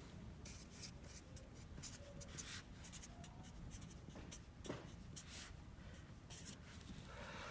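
Felt-tip marker writing on paper: a string of short, faint strokes as characters are written out one after another.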